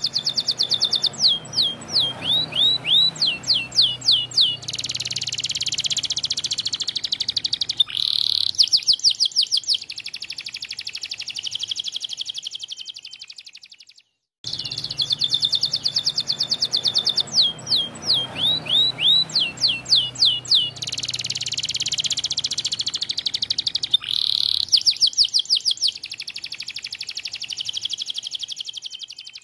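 White domestic canary singing a long song: runs of quick falling whistled notes alternate with buzzy rolled trills, and a long trill fades out at the end of the phrase. The phrase is heard twice, with a brief silence about fourteen seconds in.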